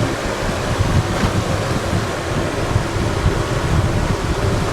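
Wind buffeting the microphone: a steady rumbling noise that rises and falls unevenly.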